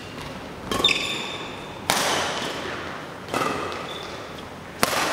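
Badminton rackets striking a shuttlecock in a doubles rally: four sharp smacks about a second and a half apart, each ringing briefly in the hall. Short high squeaks of court shoes come between the hits.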